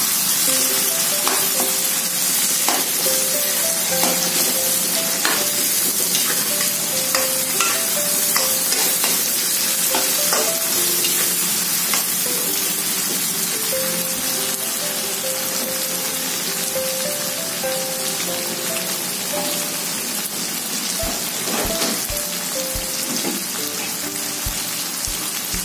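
Chilies, stink beans and tomato with fermented soybean paste (tauco) sizzling steadily in oil in a wok, stirred with a metal spatula that scrapes and knocks against the pan now and then.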